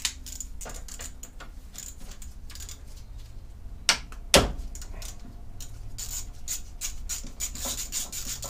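Socket ratchet clicking in quick runs as the 10 mm bolts holding the high-pressure pipes onto a car's air-conditioning condenser are undone, with two sharp metal knocks about four seconds in.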